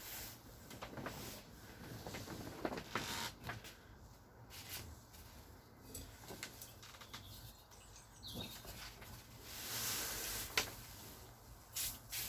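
Light, scattered clicks and taps of small parts and tools being handled, with a short rubbing hiss about ten seconds in.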